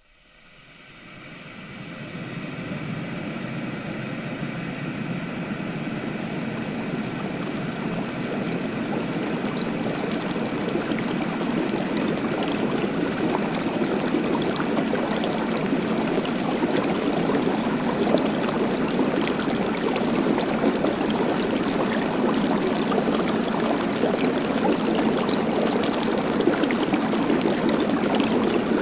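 Water rushing steadily, with light crackling on top. It fades in over the first two seconds and then holds steady and loud.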